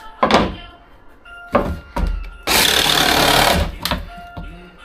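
A few sharp knocks, then a handheld power tool runs in a burst of a little over a second, loud and even.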